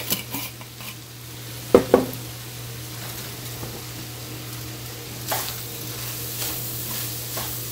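Ground beef with onion, green bell pepper and garlic sizzling in a frying pan, a steady frying hiss. Two sharp knocks come a little under two seconds in, the loudest sounds, with a few lighter taps around them.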